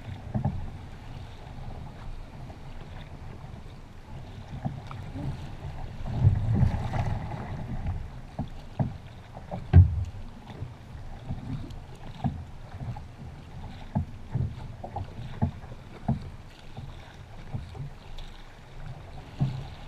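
Surfski being paddled on choppy water: a steady low wind rumble on the microphone, with irregular splashes and knocks from the paddle blades entering the water and water slapping the hull, the loudest splash about halfway through.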